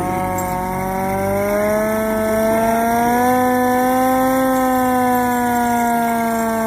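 Hand-cranked mechanical siren of a 1926 Studebaker fire truck wailing loudly, its pitch climbing slowly over the first few seconds and easing off slightly near the end.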